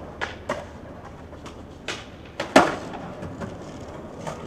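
Skateboard on concrete paving: several sharp clacks, the loudest about two and a half seconds in.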